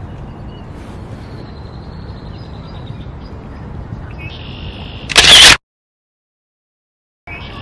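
Steady outdoor background noise, then about five seconds in a loud, short camera-shutter click, an edited-in sound effect, cut off into complete silence.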